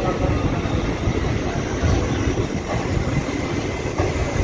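Passenger express train running along the line, heard from on board: a steady rumble of the coaches and wheels on the rails.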